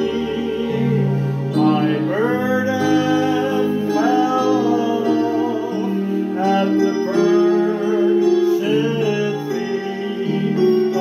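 Electronic keyboard playing a hymn accompaniment, with a small group of voices singing along.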